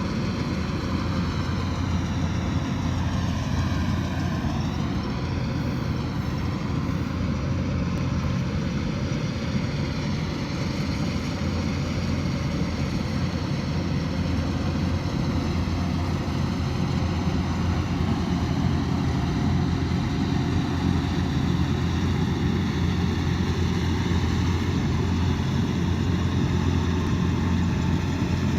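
Kubota DC108X combine harvester's diesel engine and threshing machinery running steadily, the engine pitch dipping briefly and recovering about four seconds in.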